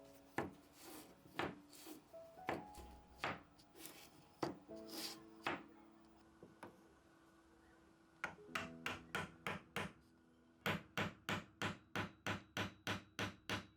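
Hard wood-on-wood knocks and taps, spaced unevenly at first. Near the end comes a quick, even run of about three taps a second.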